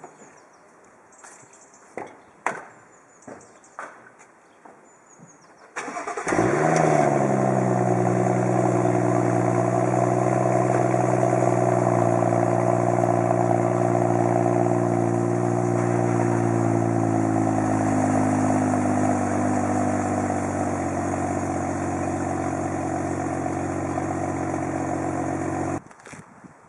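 A stock 2013 BMW 335i xDrive (F30) with its 3.0-litre turbocharged straight-six. After a few scattered clicks and knocks, the starter cranks briefly about six seconds in and the engine catches with a rev flare. It settles into a high idle whose pitch slowly drops, then the sound cuts off suddenly near the end.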